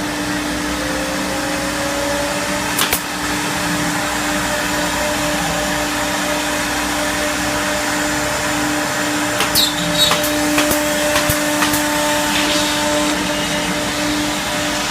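Three-head CNC wood router running: a loud, steady machine hum with a steady tone through it. A few sharp clicks or knocks come about three seconds in and again around ten seconds.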